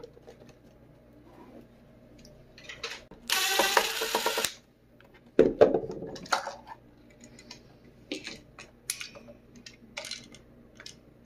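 Cordless drill-driver running for about a second with a high whine a few seconds in. Around it are sharp plastic clicks and knocks as a Roomba drive-wheel module is worked loose from the chassis.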